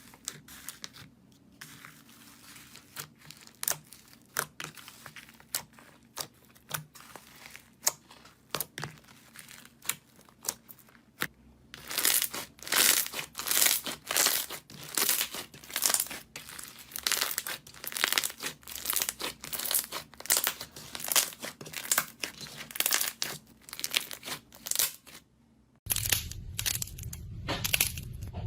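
Crunchy material being pressed and squeezed close to the microphone, giving crackling, crinkling strokes. They are sparse and soft at first, then after about twelve seconds become a louder run of crackles, about two a second. A short gap comes near the end before the crackling resumes.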